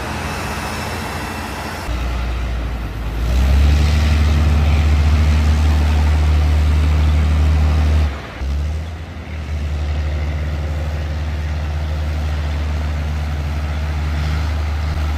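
Heavy off-road truck engine running under load as a low, steady drone. It steps up louder about two seconds in and again at three and a half seconds, drops out briefly around eight seconds, then picks up and runs on steadily.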